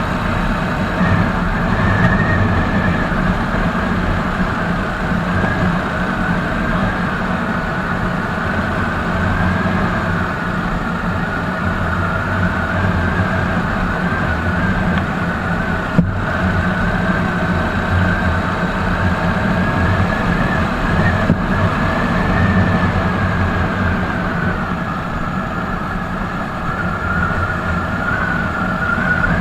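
Royal Enfield Hunter 350's 349 cc single-cylinder engine running steadily at highway cruising speed, with road and wind noise. Two short clicks come through, one about halfway through and one a few seconds later.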